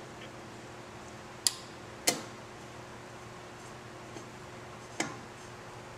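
A few sharp clicks, three of them clear, about a second and a half in, at two seconds and about five seconds in: a hex key and bolts clicking against a metal cheese wedge cover plate as the bolts are started by hand.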